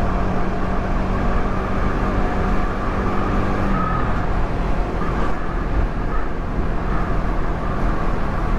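Yamaha R15 V3's single-cylinder engine on its stock exhaust, running steadily while being ridden; its steady note drops away about four seconds in.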